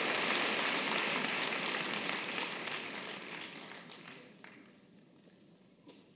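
Audience applauding, loud at first and dying away over a few seconds, leaving only a few scattered claps.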